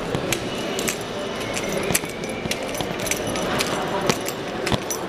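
Indistinct chatter of shoppers in a mall, with scattered light jangling clicks and clinks close to the microphone.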